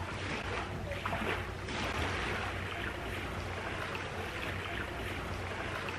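Steady outdoor background noise: an even hiss with a faint low hum underneath, with no single event standing out.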